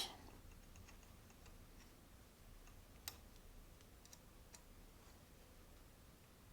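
Near silence with a few faint, sparse clicks of an Allen wrench on the rail's screws as they are snugged down with light torque; one sharper click about three seconds in.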